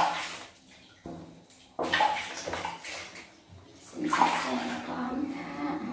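Water splashing and sloshing in a plastic basin as hands scoop it over a baby monkey being bathed, in four splashy bursts with short lulls between.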